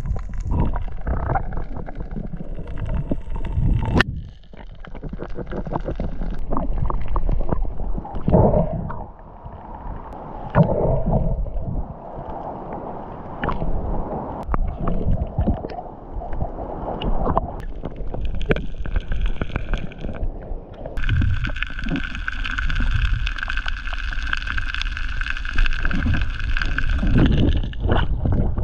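Muffled underwater sound of a diver swimming: rushing, gurgling water with low rumbling and scattered knocks. A steady high-pitched tone joins about two-thirds of the way through.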